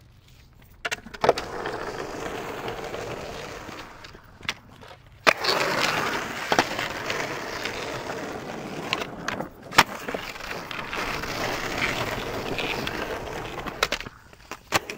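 Skateboard wheels rolling fast over pavement: a steady rushing noise that starts about a second in, drops off briefly around four seconds, then returns louder until near the end, with a few sharp clacks along the way.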